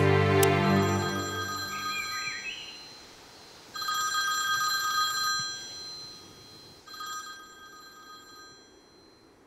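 Mobile phone ringing with an electronic ringtone, three rings of steady high tones, the middle one loudest, stopping shortly before the end. Film score music fades out over the first two seconds.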